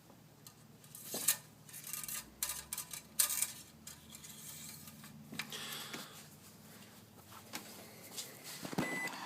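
Light metallic clinks and rattles of metal parts being handled, a few sharp knocks among them, over a faint low hum.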